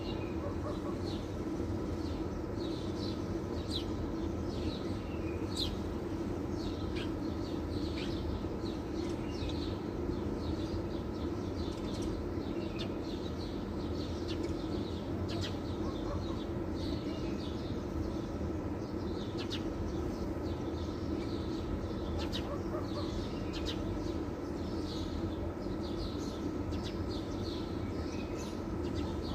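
Small birds chirping, many short high chirps scattered throughout, over a steady low mechanical hum.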